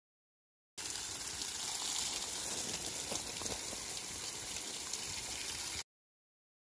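Water spray striking the leaves of a shrub: a steady splashing hiss that starts suddenly about a second in and cuts off abruptly near the end.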